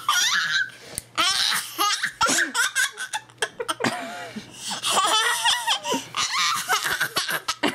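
Toddler laughing hard in repeated bursts, with a quick run of giggles about four seconds in.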